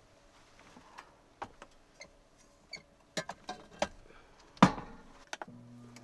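Clicks and knocks of a pie dish being handled and set into a Ninja air fryer, the loudest a single clunk about four and a half seconds in. Near the end a low steady hum starts as the air fryer begins running.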